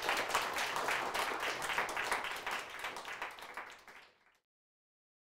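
Audience applauding, a dense patter of many hands clapping that tapers off and stops about four seconds in.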